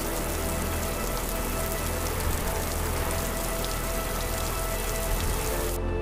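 Steady rain falling, an even dense hiss that cuts off sharply just before the end. Soft music runs faintly underneath.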